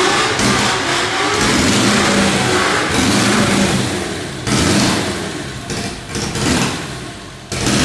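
Riding lawnmower's replacement engine running and being revved. It comes in several sudden surges in the second half, each dying away.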